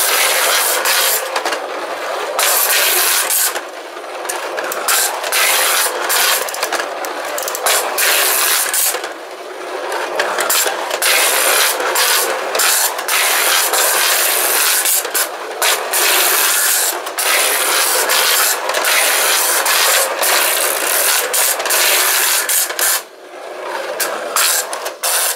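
Two clockwork tin-plate cars of a Technofix Coney Island roller coaster running round its tin track, making a continuous loud metallic rasp and rattle. The noise rises and dips, with a few short drops, and stops abruptly at the end.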